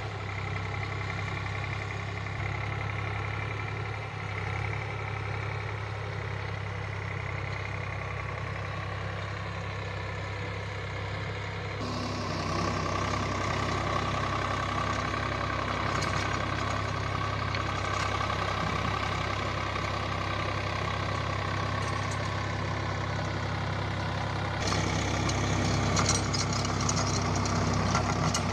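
Swaraj 744 XT tractor's three-cylinder diesel engine running steadily under load while pulling a rotary tiller through soil. The sound shifts abruptly twice, and near the end the churning of the tiller blades in the dirt comes up louder and brighter over the engine.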